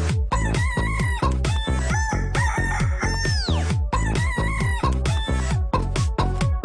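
Chicken techno: a steady electronic kick-drum beat with chicken clucks and squawks cut in rhythmically over it, and a long falling squawk about three seconds in.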